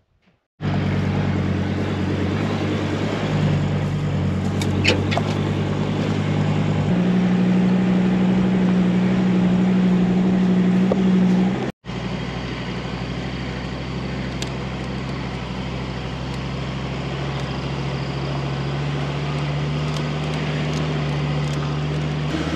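Diesel 4x4 engine running steadily while driving, a droning hum. It steps up in pitch about seven seconds in, cuts out for an instant shortly after, and comes back at a slightly lower pitch.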